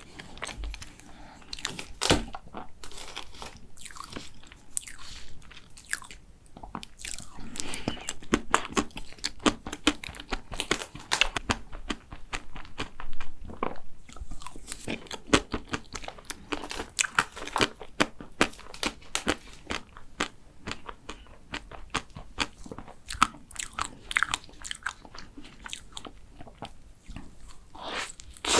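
Close-miked eating of a chocolate macaron: bites and chewing with many small, sharp crunches and clicks at an uneven pace.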